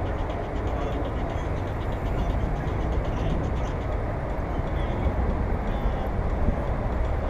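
Wind rushing over a GoPro's microphone while riding a bicycle, with tyre rolling noise: a steady, low-heavy rumble.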